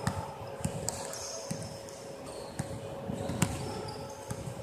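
Basketballs bouncing on a hardwood court: irregular dull thuds, the loudest about three and a half seconds in.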